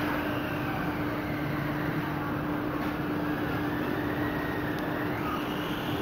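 Steady rumbling background noise with a constant low hum. A faint whine from the RC drift car's brushless motor rises in pitch in the second half as the car speeds up.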